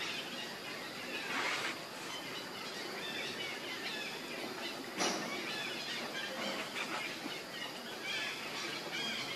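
Forest ambience: a steady hiss with scattered small bird chirps throughout, and a short sharp rustle about five seconds in.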